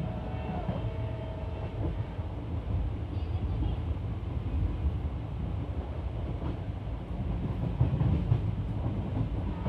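Express passenger train running along the track, heard from an open coach doorway: a steady rumble of the coach's wheels on the rails with irregular rattles and knocks, a little louder around eight seconds in.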